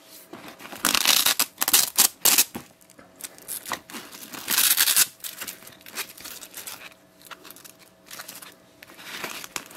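Hook-and-loop (Velcro) fastener ripping as a loop panel is peeled off a nylon bag flap: a run of rasping rips in the first few seconds, a longer rip about halfway through, and a fainter one near the end.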